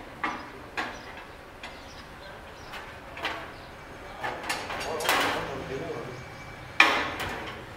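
Steel reinforcing bar and a hand bending tool clinking and knocking as a bar is worked and handled on a bench, in scattered sharp strikes with a scraping stretch past the middle and the sharpest knock near the end.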